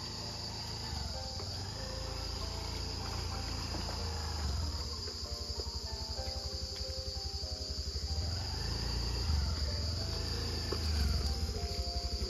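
A steady, high-pitched insect chorus that holds unbroken throughout. Under it is a low rumble that grows louder and starts pulsing quickly about halfway through.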